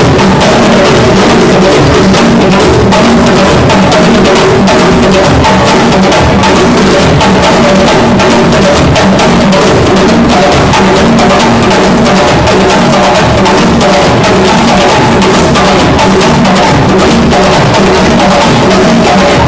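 Live djembe drum ensemble playing a dense, steady rhythm, very loud throughout.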